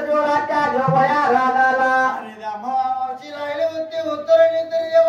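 Men singing a Dhangari ovi, a Dhangar devotional folk song, in a chant-like melody with long held notes.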